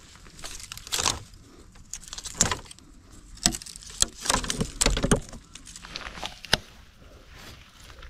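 Dry bamboo canes and twigs cracking and rustling as a hand pushes into the clump to break off young bamboo shoots, with irregular sharp snaps and knocks.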